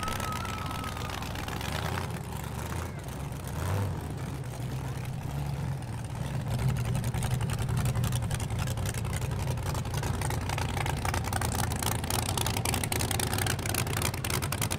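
Cammed LS V8 of a Chevy S-10 burnout truck idling steadily, a little louder from about seven seconds in.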